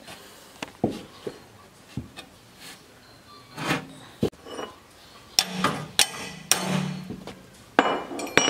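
Irregular metallic clicks and knocks from a ratcheting combination wrench working a rusted nut that holds a steel blade.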